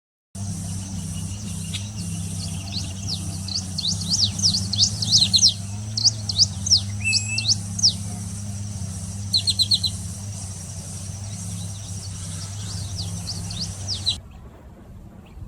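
Small birds calling with rapid, high, steeply falling chirps, in several quick clusters, over a steady low hum and a thin steady high tone. The sound changes abruptly about 14 seconds in.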